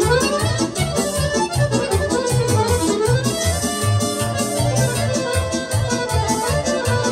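Live Balkan kolo dance music: an accordion playing the melody over keyboard backing, with a steady, even beat.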